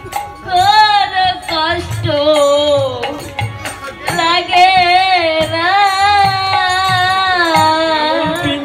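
A woman sings a Matua devotional Hari song in long, wavering held notes that bend up and down in pitch, with drum beats underneath.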